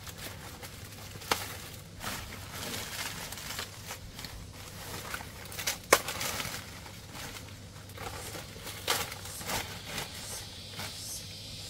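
Irregular crackling and rustling with a few sharp knocks, the loudest about six seconds in, over a steady low hum.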